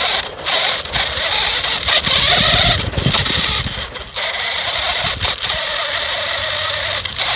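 GPToys S911 RC truck's electric motor and gear train whining as the truck drives, heard up close from a phone mounted on the truck itself. A steady high whine over a rough, noisy rattle, dipping briefly three times as the throttle eases.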